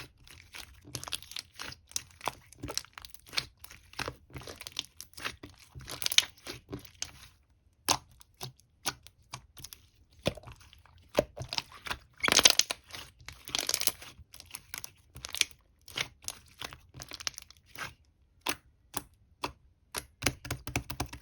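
Clear, colourless slime being squished and pressed by hand, making a quick series of small clicks, pops and crackles. Louder crackling comes about six seconds in and again from about twelve to fourteen seconds in.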